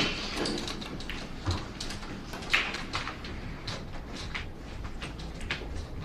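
Scattered sharp clacks of billiard balls striking each other on pool tables, a few per second at irregular intervals, over a low steady room hum.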